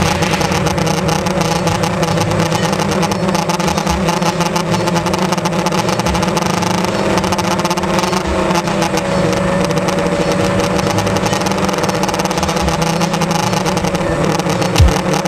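Quadcopter's electric motors and propellers whining in flight, picked up by the camera on the craft: several steady tones that drift up and down in pitch as the throttle changes, over a rush of air.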